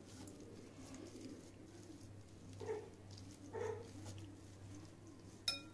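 Faint low cooing of a bird over a steady low hum, with two short louder sounds in the middle and a sharp click near the end.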